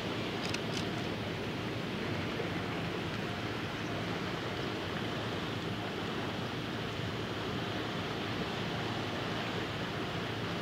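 Steady wash of small waves and wind at the shoreline, with two faint ticks about half a second in.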